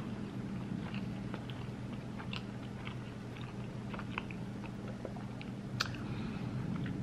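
A person chewing food with the mouth closed, small wet clicks scattered through, over a steady low hum.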